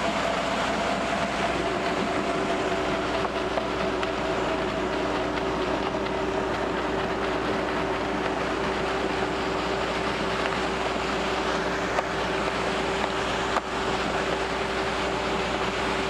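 Volumetric concrete mixer running steadily with a whine as it mixes and discharges concrete down its chute. A second, lower tone joins about a second and a half in.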